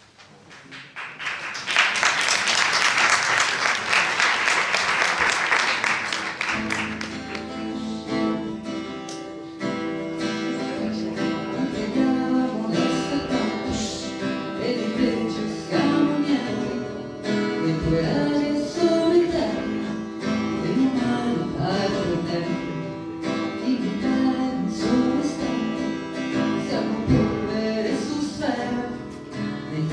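Audience applause for about five seconds, then a song starts: acoustic guitar with a woman singing, and a large drum played along.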